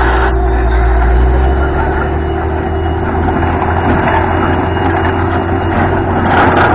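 Truck-mounted borewell drilling rig running loud and steady while drilling, its engine note shifting about a second and a half in, over the rushing hiss of mud and water being blown out of the borehole. The rush grows louder just before the end.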